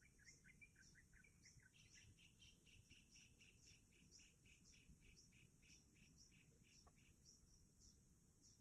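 Faint bird calls: short high chirps repeating about twice a second, joined for several seconds in the middle by a faster run of lower chirps.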